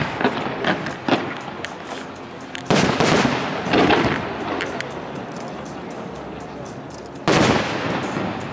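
Aerial fireworks shells bursting: a loud boom at the start, two more about three and four seconds in, and another near the end, each trailing off into a rumble, with a few sharper cracks in between.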